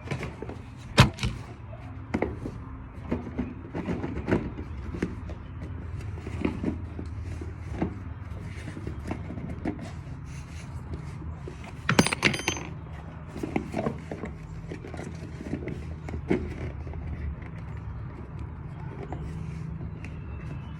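Hand tools clicking, tapping and scraping while working on a doorbell, with a sharp click about a second in and a quick rattle of clicks around twelve seconds in, over a steady low rumble.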